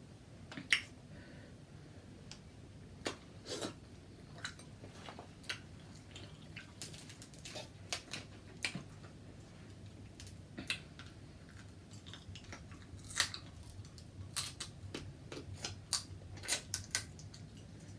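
Close-miked eating of a seafood boil: irregular sharp clicks and smacks of chewing and handling the food, coming more often in the second half.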